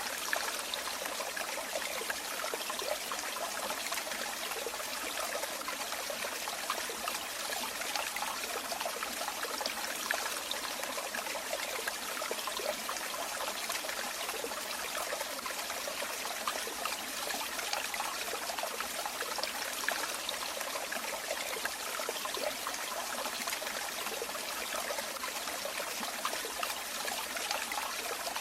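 Running water trickling and splashing steadily, a constant bright rush dotted with many small splashes and with little deep rumble.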